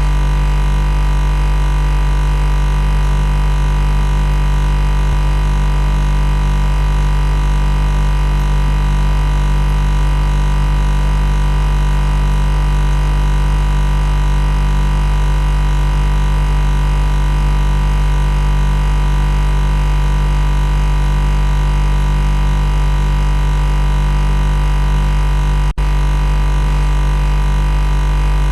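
Loud, steady machine buzzing: a low hum with many fixed overtones that does not change in pitch or level. It drops out for an instant about 26 seconds in.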